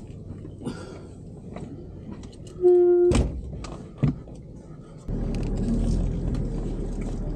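Handling noises and knocks inside an off-road vehicle's cabin, with a short beep and a loud thump about three seconds in. About five seconds in, a steady low engine rumble starts and keeps going.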